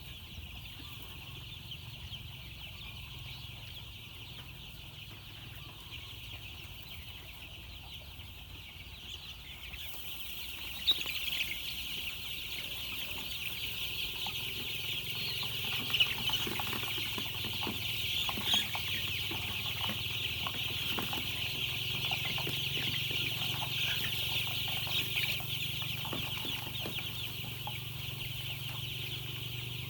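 A brood of chicks peeping continuously in a dense chorus, growing louder about ten seconds in, with a few sharp knocks.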